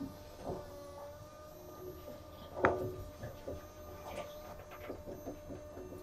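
Electric coolant pump of a diesel-electric truck running with a steady whine, with irregular clicks and one sharper click near the middle as coolant circulates and sloshes through the system.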